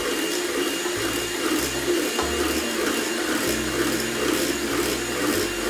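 Hand-cranked rotary egg beater whisking runny batter in a stainless steel bowl, with faint clicking of the gears, over a steady whirring hum.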